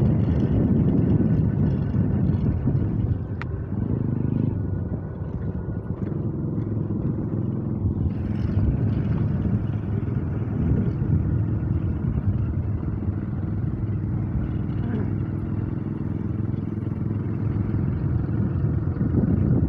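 Small motorcycle engine running steadily while the bike is ridden, heard from on board.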